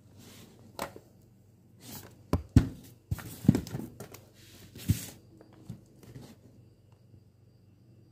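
Cardboard kit box being handled and opened by hand: a string of knocks and clicks with short cardboard scrapes and rustles, loudest between about two and five seconds in.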